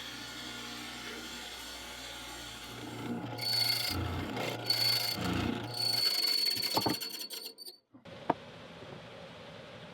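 A woodworking power tool working into wood, with a high whine that comes and goes. It stops abruptly about eight seconds in, followed by a single click.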